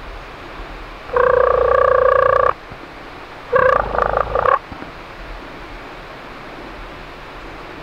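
Two loud, rattling turkey calls: the first about a second in, held at a steady pitch for about a second and a half, the second a second later, shorter and choppier.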